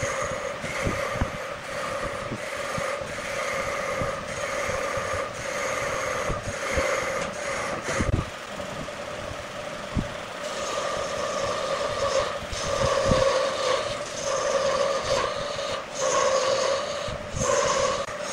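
Wood lathe running with a steady whine while a turning tool scrapes and cuts the spinning wood, the cutting noise swelling and fading, with a few sharp knocks.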